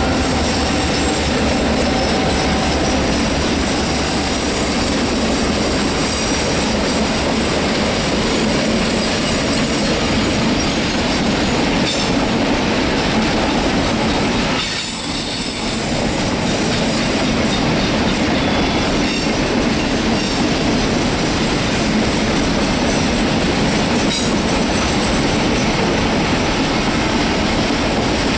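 A RoadRailer train of highway trailers riding on rail bogies rolls steadily past on a tight curve, its wheels squealing against the rails with some clacking over the rail joints. The sound dips briefly about halfway through.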